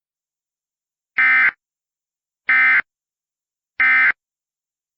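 Emergency Alert System end-of-message signal: three short, identical bursts of SAME digital data tones, evenly spaced about a second and a quarter apart, marking the end of the alert.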